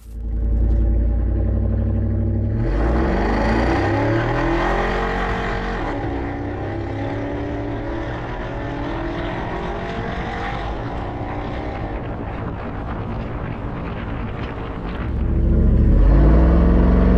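Ford Lightning's V8 running through its custom stainless exhaust, now fitted with a resonator, with a deeper note. It picks up speed about two seconds in, with the pitch rising, runs steadily, then gets louder and rises again near the end.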